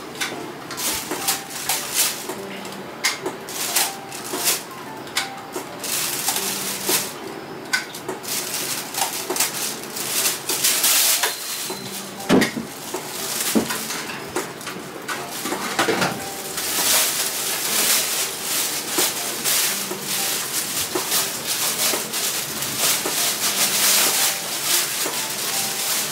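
Kitchen clatter while cooking: utensils and pans knocking and clinking over and over, with a hissing noise from about six seconds in.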